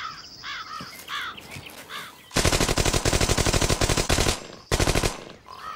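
Machine gun firing two bursts of rapid automatic fire: a long burst of about two seconds, then a short burst half a second later.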